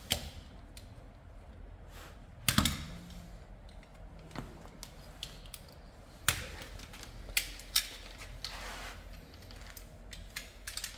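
Scattered clicks and knocks from a solar panel being handled, its frame and cable connectors knocking and clicking. The sharpest knock comes about two and a half seconds in, with a few more later.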